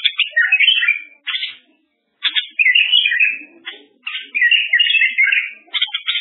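A songbird singing a fast, varied run of chirps and warbled phrases, with a short pause about two seconds in.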